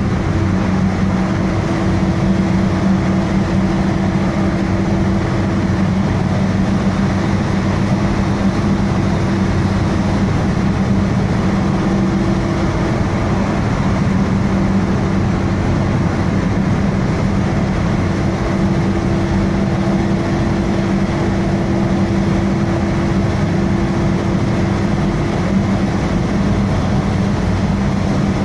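Car driving at steady speed through a road tunnel, heard from inside the cabin: a steady rush of tyre and road noise with an even low engine hum.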